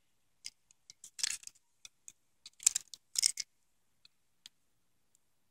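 Small clicks and scratchy rustles from fingers and a pick tool working a terminal pin out of a plastic wiring-harness connector: a few short rustles in the first three and a half seconds, then a couple of faint ticks.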